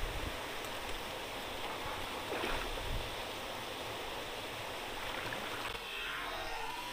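Steady rush of water pouring out of a fishpond sluice gate into the channel, with a couple of short thumps about two and a half to three seconds in. Music comes in near the end.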